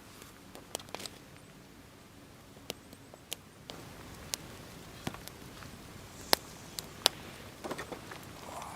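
Wood campfire crackling: irregular sharp pops and snaps over a faint steady hiss, with two louder pops a little past the middle.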